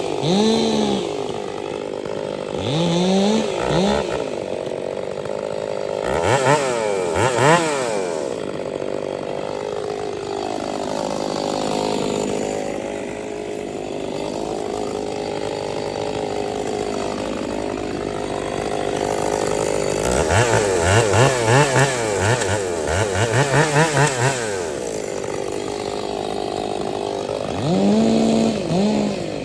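Chainsaw engine running, revving up and falling back again and again, with a run of quick throttle blips about two-thirds of the way through.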